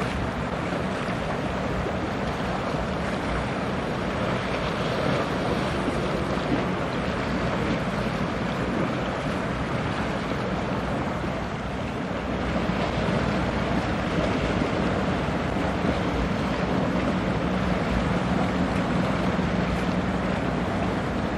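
Wind rushing across the microphone over choppy water on a shipping strait, a steady noisy wash with no speech. A faint low steady hum sits underneath, clearer in the second half.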